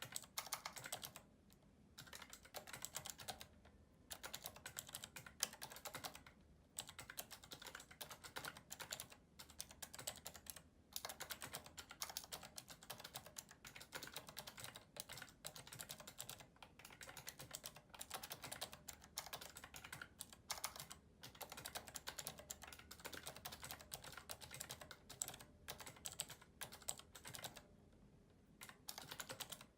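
Fast, continuous typing on a mechanical keyboard with clicky Cherry MX Blue switches, each keystroke a sharp click. The typing stops briefly about a second and a half in, again about six and a half seconds in, and once more near the end.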